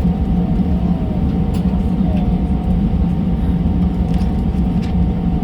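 Steady cabin noise inside an Airbus A320 with its engines idling on the ground: a constant low rumble with a steady hum above it and a few faint ticks.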